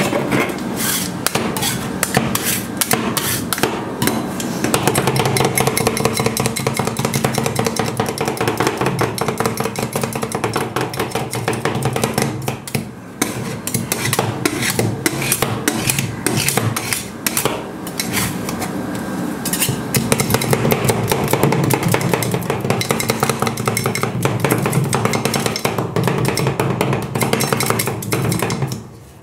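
Steel spatulas chopping and scraping an ice cream mixture on a steel cold plate: a fast, continuous run of metal clacks and scrapes as the blades strike the plate.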